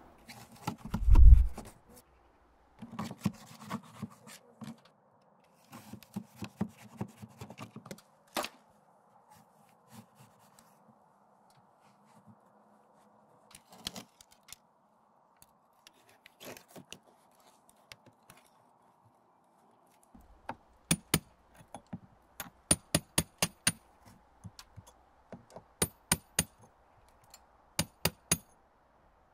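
Utility knife scraping and cutting through the thin render and glass-fibre mesh of an insulated facade, with a dull thud about a second in. In the last third come rapid sharp knocks, several a second, as a chisel chips away the render.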